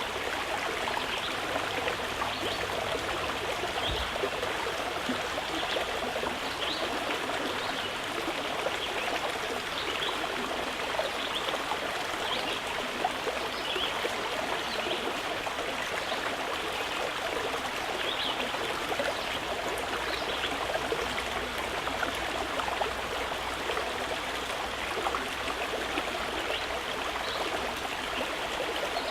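Running water flowing steadily, like a stream, with many small splashes and trickles over a continuous rush.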